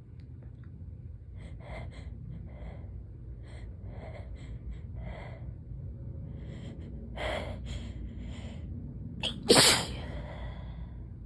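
A person sick with a cold takes a string of short, catching breaths as a sneeze builds, then lets out one loud sneeze about nine and a half seconds in.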